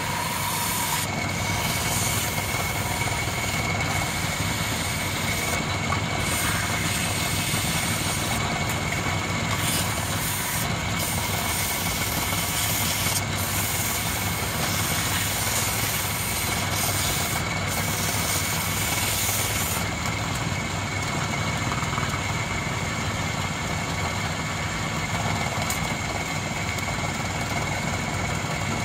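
Small wood lathe running steadily with a constant whine and low hum, while sandpaper rubs against the spinning wooden spindle, adding a steady hiss.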